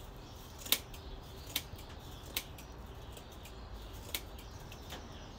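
Scissors snipping through the dry broom corn bristles of a hearth broom, trimming the ends even: five sharp snips, with a longer pause before the fourth.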